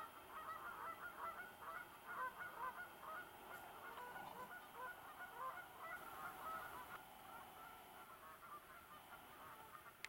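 A flock of birds calling, many short calls overlapping, thinning out over the last few seconds.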